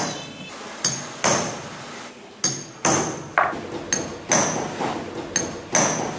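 A hammer striking a steel hand punch as it perforates a leather shoulder strap: about ten sharp blows at an uneven pace, roughly two a second, each with a short metallic ring.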